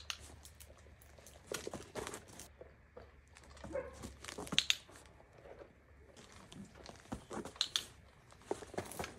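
A large dog moving about on interlocking foam mats laid over gravel, getting up and lying back down. Its movements make scattered scuffs, crunches and light clicks.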